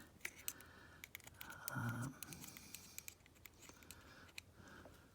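Faint light clicks and scratches of steel picks working at the circlip on a motorcycle engine's oil pump idler gear, with a brief low sound about two seconds in.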